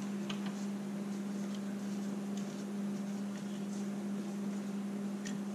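Faint scattered clicks and rubbing as hands work a rubber intercooler boot and its pipe loose in a diesel truck's engine bay, over a steady low hum.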